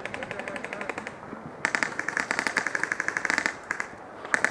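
Airsoft guns firing on full auto: a rapid run of sharp pellet shots for about a second, a longer and louder burst in the middle, then a few quick shots near the end.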